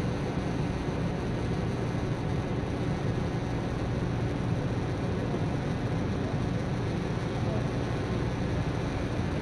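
Intel Aero quadcopter's propellers humming steadily as it hovers, holding an even pitch with small position corrections.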